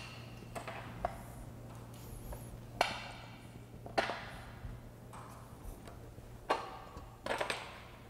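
Scattered sharp metal clicks and clinks, some with a short ring, as the four bolts are pulled out of an E/One grinder pump's top housing and handled.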